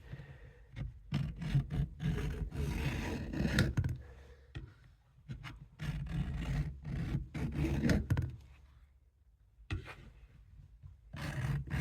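Vintage Camillus knife blade being stroked back and forth across a sharpening stone, rasping scrapes in three runs with short pauses between.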